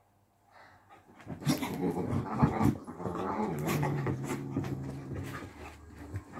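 Beagle puppy play-fighting with a kitten: scuffling and knocks start about a second in, then a low, drawn-out growl lasting about two seconds, trailing off near the end.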